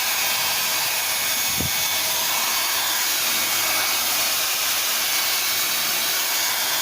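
Philips HP8100/06 compact 1000 W hair dryer running steadily, a loud even rush of blown air with a faint high whine from its motor. A brief low thump comes about one and a half seconds in.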